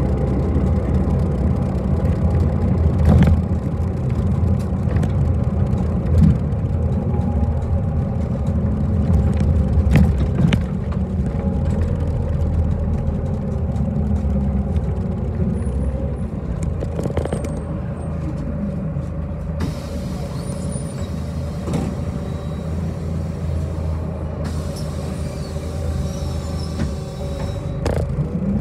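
City bus under way, heard from inside the passenger cabin: the engine runs with a steady low rumble, and sharp knocks and rattles sound every few seconds.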